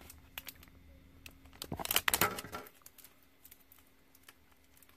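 Plastic food packaging crinkling and clicking as it is handled, with the loudest burst of crinkling about two seconds in.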